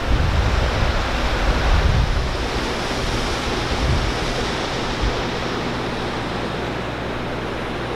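Steady rush of flowing water, with wind buffeting the microphone as low rumbling gusts over the first few seconds.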